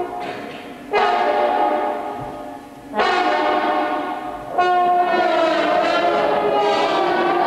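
A large trombone ensemble playing loud held chords. New chords break in suddenly about one, three and four and a half seconds in; the first two fade away before the next, and the last is held.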